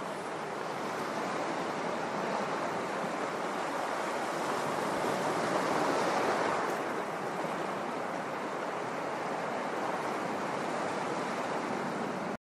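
Sea surf: a steady rush of waves that swells a little around the middle and cuts off suddenly near the end.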